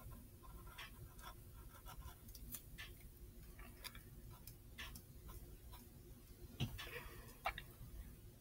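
Pencil scratching on paper in short, irregular strokes while sketching, faint throughout. A louder thump comes about two-thirds of the way in, followed shortly by a sharp click.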